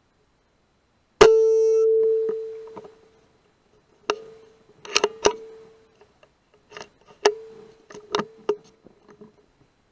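Air rifle shot about a second in: a sharp crack followed by a metallic ring that fades over about a second and a half. A series of sharp clicks and knocks follows, each ringing briefly at the same pitch, from the rifle and its scope-mounted night-vision unit being handled.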